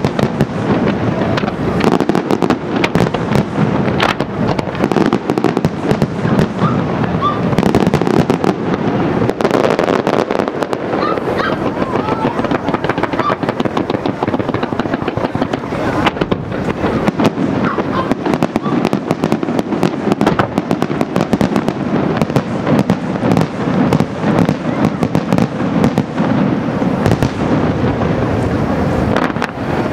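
Aerial firework shells bursting in a dense, unbroken barrage of bangs, one on top of the next.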